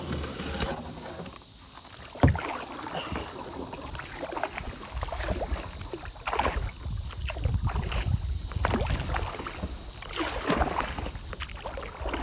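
Kayak paddle strokes swishing and splashing in the water at an uneven pace, with one sharp knock about two seconds in and a low rumble from about five seconds in.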